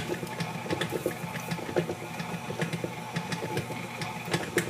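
KitchenAid stand mixer running, its motor humming steadily while the beater works flour into stiff cookie dough, with irregular clicks and knocks.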